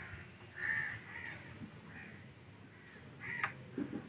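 Crows cawing faintly, several short scattered caws.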